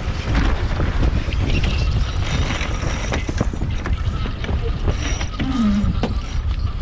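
Wind buffeting the microphone aboard a sailboat under way, over the rush of water, with scattered clicks and knocks and a brief low falling tone about five and a half seconds in.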